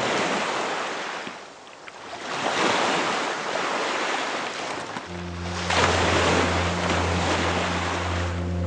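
Sea waves washing in and drawing back, three surges of surf. Background music with low held tones comes in about halfway.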